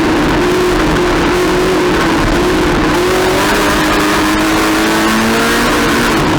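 Race car engine running hard under racing load, its pitch climbing from about the middle and dropping again just before the end.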